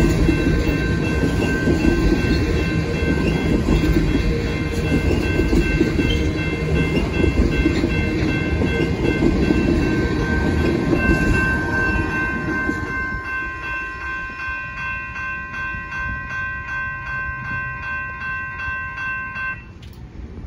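Loaded freight train of tank cars rolling past close by: a loud rumble of steel wheels on the rails with clickety-clack, and steady high ringing tones over it. About halfway through the rumble fades, and the ringing pulses about twice a second. Near the end the sound cuts off suddenly.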